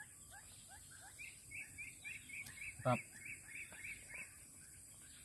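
Birds calling in rapid series of short falling chirps, about three a second. About a second in, a higher, quicker series joins and stops after about three seconds. A single short, louder cry comes near the middle.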